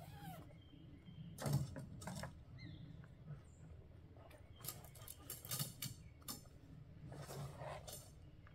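Scattered light knocks and clicks of gear being handled and set down in a pickup truck bed at the open tailgate, the loudest about one and a half seconds in, with a few faint bird chirps.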